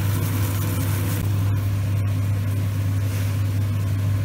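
Velvet shank and oyster mushrooms frying in oil in a pan, a soft sizzle under a loud, steady low hum from a kitchen appliance.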